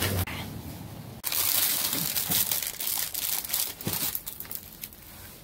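Plastic produce bags crinkling and rustling as they are handled and shifted about, starting suddenly about a second in and dying down near the end.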